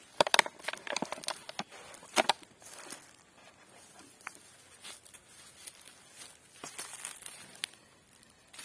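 Dry fallen leaves crackling and rustling as a plastic jar is handled and set down on the leaf litter, with a run of sharp crackles in the first couple of seconds, then sparser, softer ones.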